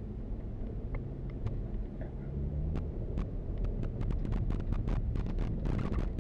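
Vehicle driving slowly over a rough dirt track: a steady low engine and road rumble, with the engine note rising a little in pitch partway through. Clicks and rattles from the tyres and body on stones come sparse at first and grow dense in the second half.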